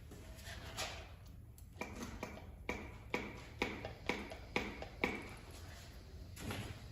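A run of about eight light, sharp taps, roughly two a second, each with a short ringing tone, as of something small tapped against a hard, resonant object.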